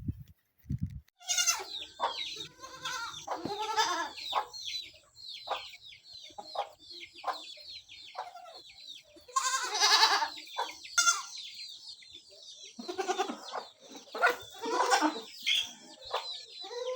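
Farmyard chickens clucking amid many short, high calls, while goats bleat a few times, the loudest about ten seconds in and again around thirteen to fifteen seconds.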